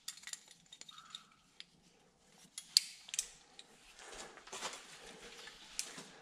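Metal climbing gear on a rope clinking in scattered sharp clicks, then a rustling scrape of clothing and boots against the rock from about four seconds in.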